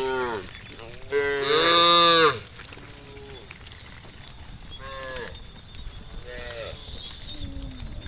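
Cows mooing, several calls in turn: the loudest is a long moo about a second in, and shorter, fainter moos follow.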